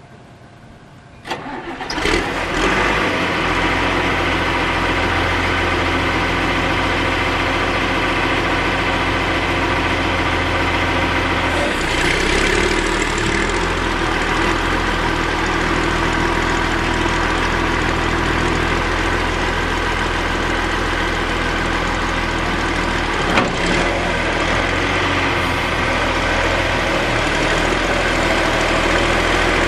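John Deere backhoe's diesel engine cranking and catching about two seconds in, then idling steadily. This is a start-up to warm the machine and cycle its hydraulic fluid. The engine note shifts around the middle, and there is a single knock later on.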